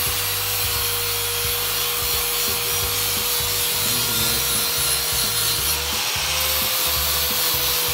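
Small right-angle grinder with a sanding disc running on steel frame tubing: a steady whine under a continuous grinding hiss.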